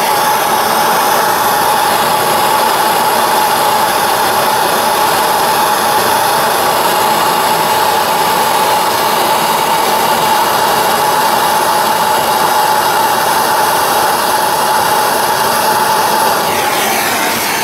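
Hand-held gas torch burning steadily with a loud hiss and a steady whistling tone, heating a rusted brake line flare nut at the brake hose bracket to free it.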